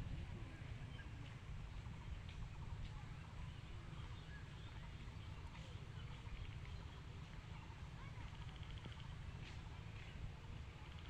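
Birds chirping and calling over a steady low rumble, with a quick rattling trill about eight and a half seconds in.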